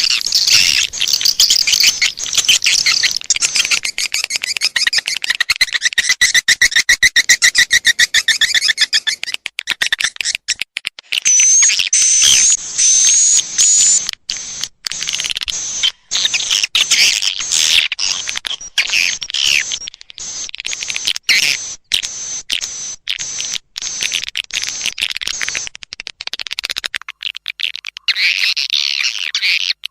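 Edible-nest swiftlet calls played as a lure track to draw swiftlets into a swiftlet house: dense, high-pitched rapid chattering and twittering, with a thin high whistle about eleven seconds in.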